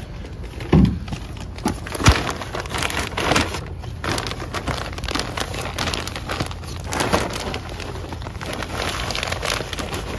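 Hands working with small plastic plant pots and potting soil: a thump, a sharp knock about two seconds in, then scattered rustling and crackling as soil is handled.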